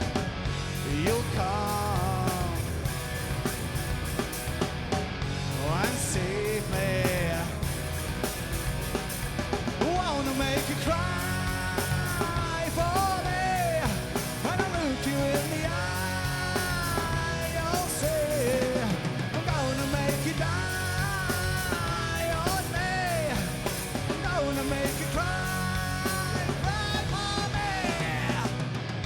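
Live rock band playing a song: lead vocals sung in phrases over electric guitars, bass guitar and drums.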